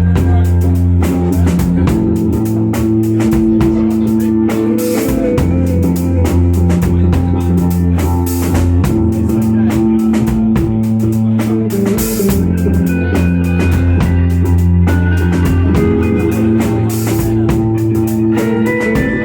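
Rock band playing live with drum kit and guitar: an instrumental passage with steady, busy drumming over held low notes and no singing.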